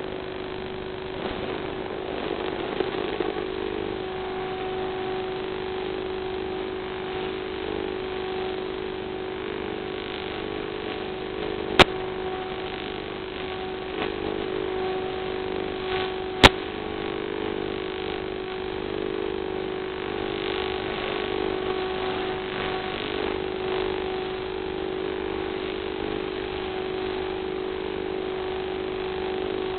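Steady electric hum from a small FPV quadcopter resting on the ground, recorded by its onboard camera, over a hiss. Two sharp clicks come about 12 and 16½ seconds in.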